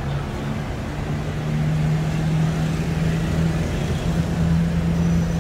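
Motor vehicle engine idling with a steady low hum, rising slightly in pitch about a second and a half in, over street noise.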